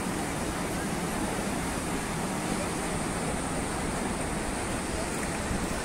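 Steady wash of sea surf breaking on a beach, a continuous even rush with no distinct events.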